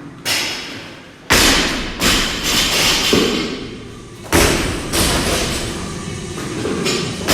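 Several heavy thuds of a loaded barbell with bumper plates coming down on the gym floor during workout reps. The loudest land about a second in and again after about four seconds, with lighter knocks between them.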